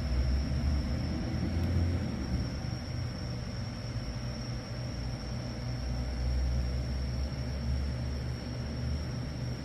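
BMW E92 M3's 4.0-litre S65 V8 engine running steadily, a low, even rumble. It is recorded while the owner checks the engine for a ticking noise he feared could be a rod bearing.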